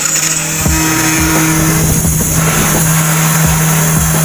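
Small desktop CNC router's spindle motor running with a steady hum while its pointed engraving bit cuts a groove in a board.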